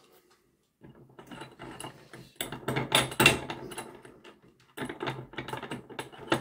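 Small bench vise being wound shut on a model-locomotive motor part to press the brush caps down: a run of quick metallic clicks and rattles, busiest two to three seconds in and again near the end.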